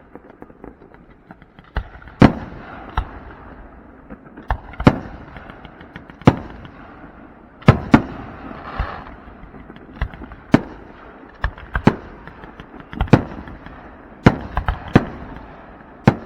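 Fireworks display: aerial shells bursting as sharp booms at irregular intervals, the loudest a second or two apart, with smaller pops and crackle between them.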